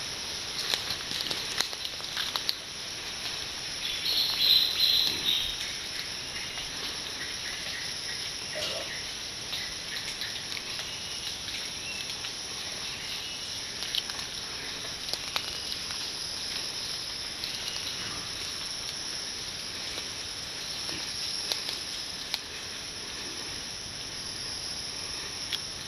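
Wild boar cracking and chewing langkap palm fruit, scattered sharp cracks that sound like bones being snapped, over a steady chorus of forest insects. A brief louder sound stands out about four seconds in.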